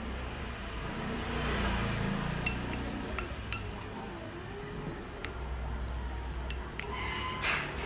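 Wooden chopsticks stirring seasoned sliced raw pork in a ceramic bowl, with a handful of sharp clinks as the chopsticks strike the bowl's rim and sides.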